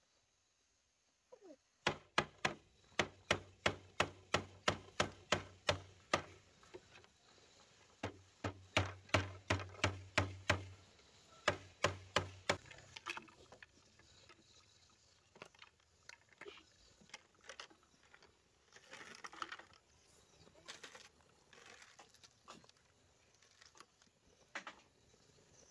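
Bamboo being struck hard with a tool in quick, regular strokes, about three a second, in three runs with short pauses; each knock has a hollow, low ring. The strokes stop about halfway, leaving softer, scattered knocks and rustling.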